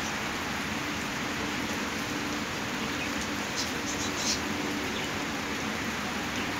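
Heavy rain falling steadily on garden plants, a wet patio and a puddle, with a few sharper drip ticks close by about three and a half to four seconds in.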